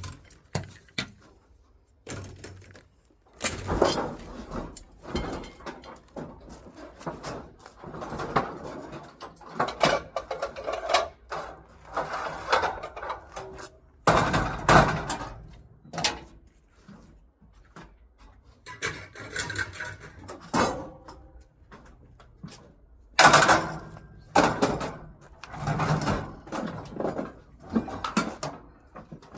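Scrap metal being handled: irregular clanks, knocks and rattles come in separate stretches with short quiet gaps between them. The loudest burst comes about 23 seconds in.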